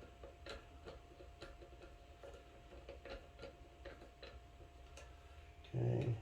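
Faint, light clicks about two or three a second from a T10 Torx driver working the small mounting screws of a red-dot optic on a pistol slide. A short spoken word comes near the end.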